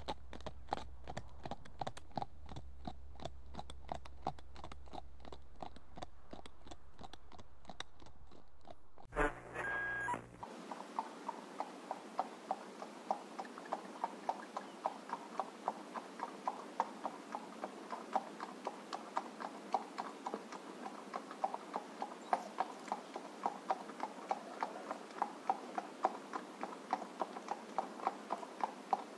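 A horse's hooves trotting in a steady two-beat clip-clop rhythm. About nine seconds in, the recording changes: a brief tone, then another trotting horse over a steady hiss, its hoofbeats louder and more distinct.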